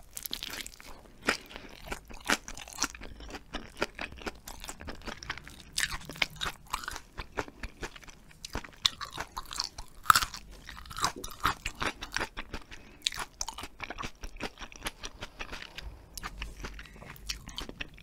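Close-miked chewing of hagfish-skin jelly: wet, sticky bites and chews that make a steady run of small clicks and smacks, the loudest about ten seconds in.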